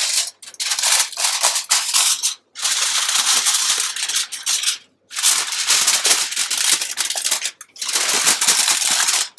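Aluminium foil crinkling and rustling as it is folded over into a wrap, in several spells separated by brief pauses.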